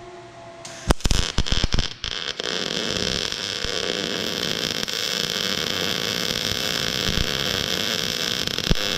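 Electric arc welding: a cluster of sharp pops and sputters as the arc strikes, settling after about two seconds into a steady crackling hiss.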